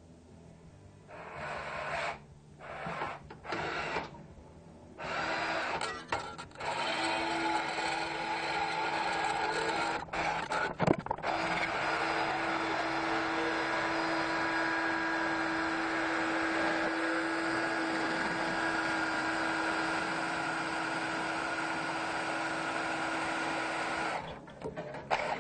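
Cordless drill spinning a bronze rod through a 3 mm threading die to key it with thread. A few short bursts, then a long, steady run with a steady whine and a brief break about ten seconds in. It stops near the end.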